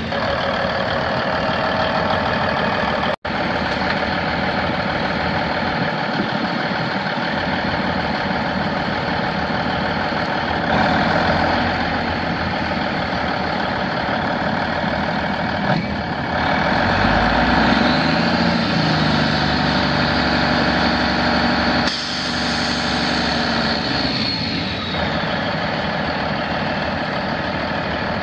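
The 1999 Volvo ACL truck's Cummins N14 Plus 14-litre six-cylinder diesel running, its engine speed rising a few times. A high whine joins in the second half and falls away near the end, and the sound drops out for a moment about three seconds in.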